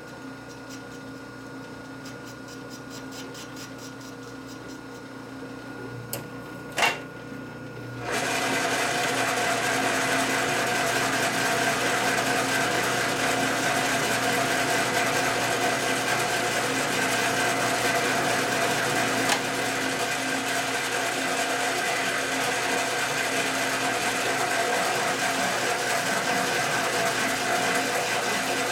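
Quiet shop room tone with one sharp click about seven seconds in; about a second later an electric machine motor comes on abruptly and runs steadily with a whirring hum.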